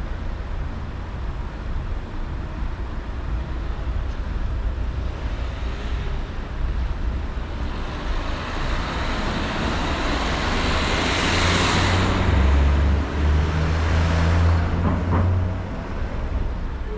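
Steady low road rumble, with a vehicle approaching and passing close: its noise swells to a peak about twelve seconds in, then fades.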